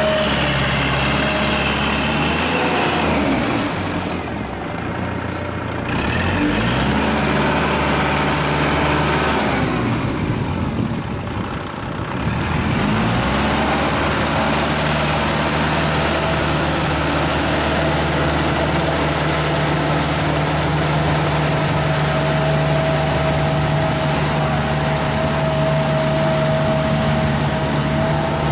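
Kubota tractor's diesel engine running steadily while it pulls a rotary tiller through a flooded rice paddy. Twice the engine drops quieter for a couple of seconds, its pitch sliding down and then back up.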